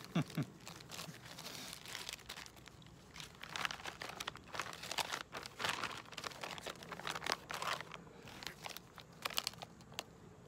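Clear plastic bags crinkling as they are handled, in irregular crackles: small zip-top bags of watch straps set aside and a sealed plastic pouch of cloths picked up.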